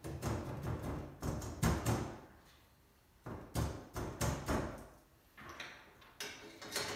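Repeated clicks and light metal knocks from hand tools working the bolts on a tubular metal wheelbarrow frame, in three spells with short pauses.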